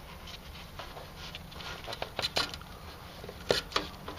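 Wire spade connectors being pushed by a gloved hand onto the terminals of an Emerson SureSwitch contactor replacement: a few sharp clicks and scrapes about two seconds in and again about three and a half seconds in, over a low steady hum.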